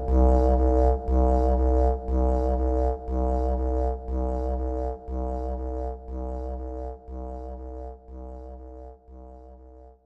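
Background music fading out: a low, droning pitched sound pulsing about once a second, growing steadily quieter until it ends.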